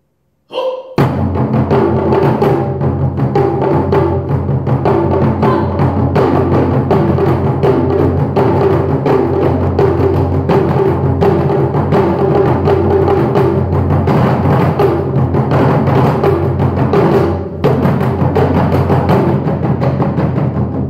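Live drum duet: two players strike snare, small drums and a row of rope-laced drums fast and densely. The drumming comes in about a second in after a brief swell and runs without pause except for a short break about three-quarters of the way through.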